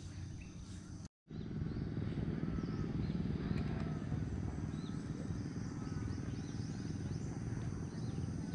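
Steady low wind rumble on the microphone, with birds chirping and insects trilling above it. The sound drops out completely for a moment about a second in.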